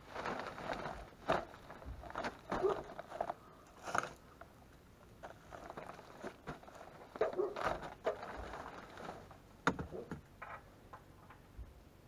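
Irregular rustling and crinkling of plastic vapor-barrier sheeting with scattered sharp knocks, as a person kneels, shifts and handles cable on it.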